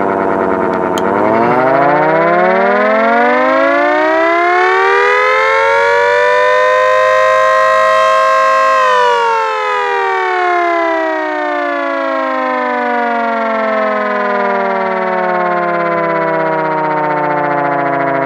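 Homemade mechanical chopper siren, a 3D-printed PETG rotor spun by a Harbor Freight grinder, wailing. After a click about a second in, its pitch rises steadily as the rotor spins up, peaks near the middle, then falls in a long slow wail as it winds down.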